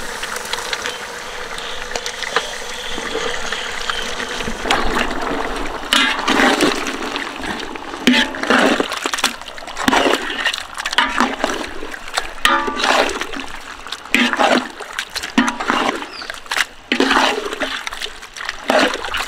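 Pieces of marinated sailfish going into a big pot of boiling gravy, splashing and sloshing in the liquid. A steady watery rush for the first few seconds gives way to irregular splashes.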